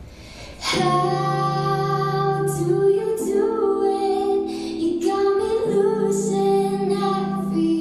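Slow ballad-style music: a high voice sings long held notes, without clear words, over sustained chords. The music swells in less than a second in, after a brief quiet moment.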